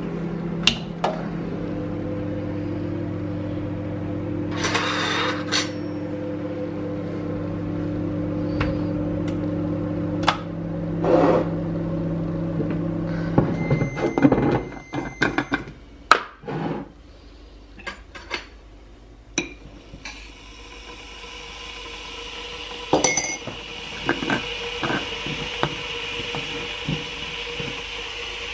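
Kitchen clatter: metal tongs and utensils knocking against a stainless steel sink, then crockery and a teaspoon clinking in a mug, over a steady low hum that stops about halfway. In the last third a hiss slowly builds, as of an electric kettle heating up.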